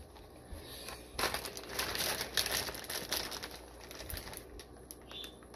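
Plastic fish-shipping bag crinkling as it is handled, a crackly rustle that rises about a second in and dies down after about two seconds.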